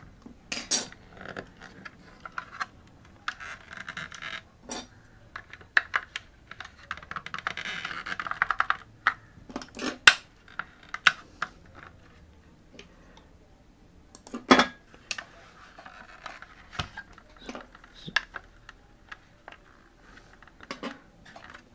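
Plastic clicks, taps and stretches of scraping as a flat metal pry tool works at the small plastic retention latches on the WD My Cloud Home's black plastic drive frame, with a few sharper snaps, the loudest about ten and fourteen and a half seconds in.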